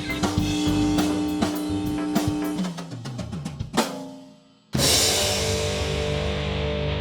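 Upbeat music with a drum kit playing a quick beat, fading away about four seconds in after one sharp hit. After a moment's gap, a new piece cuts in abruptly with a loud held chord.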